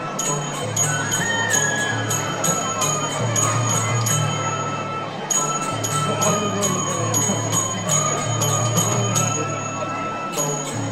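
Traditional Newar music for a Lakhey dance: a steady low drum with bright metal percussion struck in a fast, even beat about four times a second.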